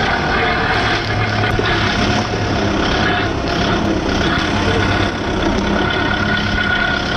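Kubota MU5501 4WD tractor's four-cylinder diesel engine running at a steady low speed as the tractor is driven slowly, heard from the driver's seat.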